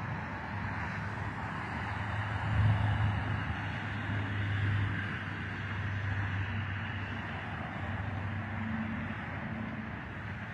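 Steady hiss and rumble of highway traffic as cars drive past, with a brief swell about two and a half seconds in.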